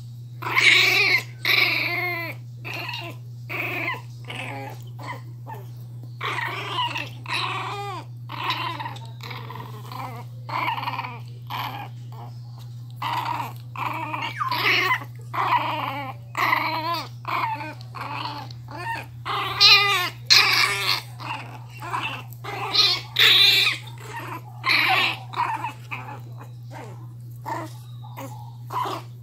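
Miniature pinscher puppies play-growling in quick, short bouts, some high-pitched, while tugging together at a cloth toy.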